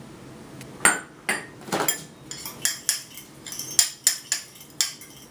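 Cutlery clinking and scraping against a small ceramic bowl as a dry spice rub is stirred, a quick irregular series of sharp clicks starting about a second in.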